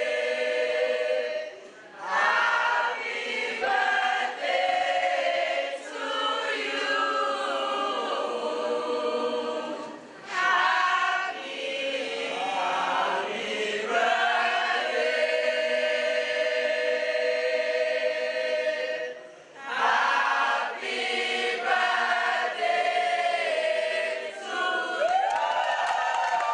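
A choir of voices singing together in long phrases, with short breaths between phrases about every eight or nine seconds.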